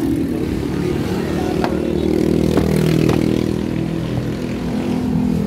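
A motor vehicle engine running close by, its steady hum swelling through the middle and easing off near the end, with a few light clicks over it.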